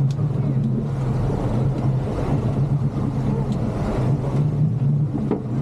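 Motorboat engine running steadily at an even pitch, with a low drone and a rushing haze over it.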